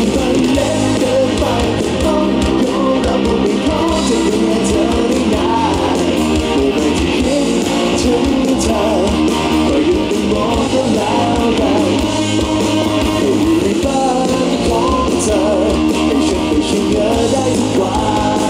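Live rock music: a man singing into a microphone over acoustic guitar and a band's steady low-end backing.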